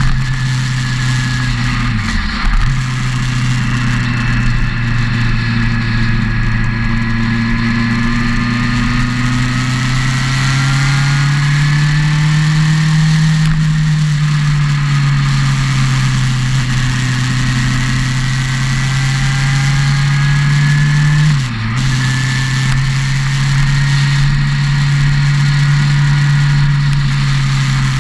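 Motorcycle engine running at a steady cruise on the road, its note rising and falling gently with the throttle. The note dips briefly twice, about two seconds in and again around twenty-one seconds in, before picking back up.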